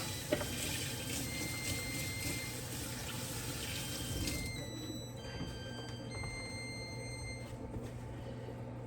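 Kitchen sink tap running water into the sink, shutting off about halfway through.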